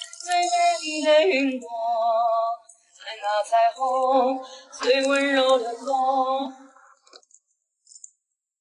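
A voice singing a short melody with wavering, held notes, which stops about seven seconds in.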